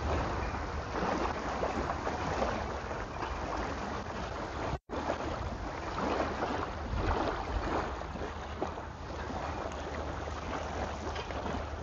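Outdoor wind rumbling and buffeting on the microphone, with irregular soft scuffs that fit footsteps on a wet path. The sound cuts out completely for a split second about five seconds in.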